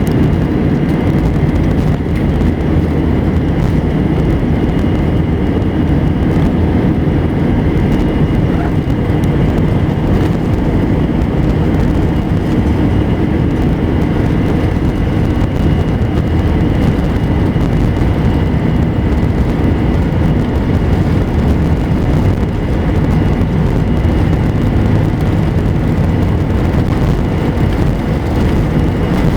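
Airliner jet engines at takeoff thrust, heard from inside the cabin: a loud, steady rumble with a faint steady whine above it.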